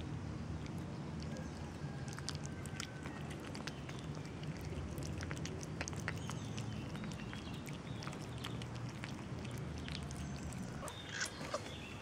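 Kittens chewing and smacking wet cat food from a plastic tub: many small scattered clicks over a steady low background rumble.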